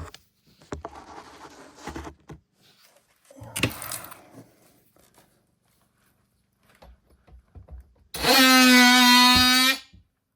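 A power tool switched on for nearly two seconds near the end, running with a steady, loud buzzing tone, after a few seconds of knocks and scraping from handling.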